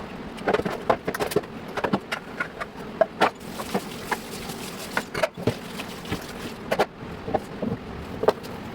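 Irregular clatter and knocks of containers and shelves being handled and set down, several a second, over a steady background hiss.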